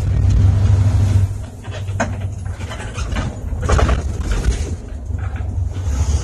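Inside a bus cabin while driving: the engine's low rumble with road noise. Two short louder noises stand out, one about two seconds in and a longer one near four seconds in.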